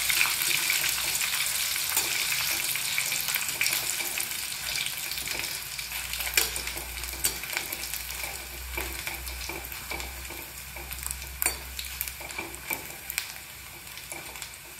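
Raw plantain (nendran) chips deep-frying in hot oil in a metal kadai, a dense sizzle that slowly fades. A metal slotted spoon stirring them gives occasional sharp clicks against the pan.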